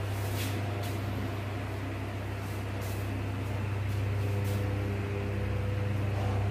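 A whiteboard duster wiping a whiteboard in a few short swishes, over a steady low electrical hum, which is the loudest thing throughout.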